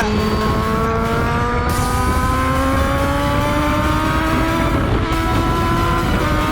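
Kawasaki ZX-10R's inline-four engine pulling hard under acceleration, its note climbing slowly and steadily in pitch as the revs rise, over a constant rush of wind noise.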